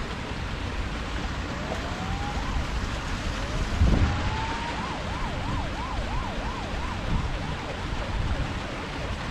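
Emergency vehicle siren sounding over a steady wash of wind and water noise, first as slow rising wails, then switching about halfway through to quick up-and-down yelps, two or three a second. A dull thump about four seconds in is the loudest moment.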